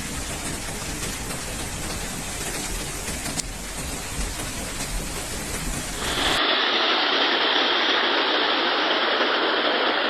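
Heavy rain and rushing floodwater make a steady noise with a low rumble underneath. About six seconds in, the sound switches abruptly to a louder, steady rush of water without the rumble.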